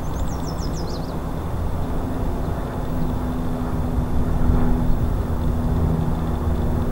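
UPS McDonnell Douglas MD-11F trijet on final approach, heard from afar as a low jet rumble. A steady engine drone comes in about two seconds in and the rumble builds slightly. At the start, a bird gives a quick run of high chirps, each falling in pitch.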